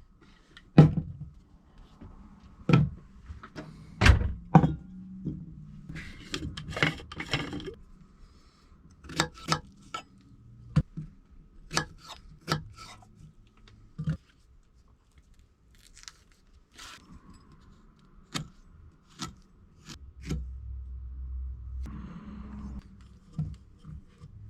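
A series of irregular sharp thunks and knocks, about fifteen hits spread out with gaps of a second or more, with a short rustling stretch about six to eight seconds in and a low rumble near the end.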